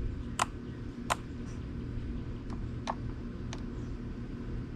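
A few sharp metal clicks, about five scattered irregularly, from tightening the chain tension on a 40 V brushless electric chainsaw's bar with its onboard tool.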